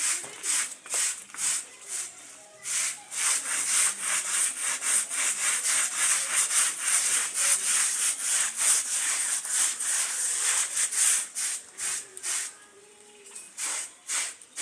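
Scrubbing brush being worked back and forth over a carpet by hand, in rhythmic strokes, about two a second at first, then faster and closer together, slowing and pausing near the end before a few last strokes.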